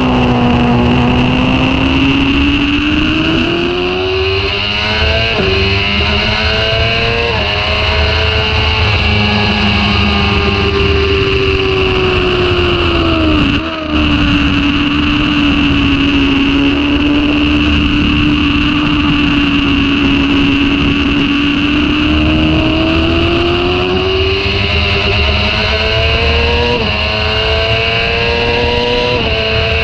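Sport motorcycle engine at full speed on track, its pitch climbing under throttle and dropping in quick steps at upshifts, with a brief lull about halfway through before it pulls again. Heavy wind rush runs under it throughout.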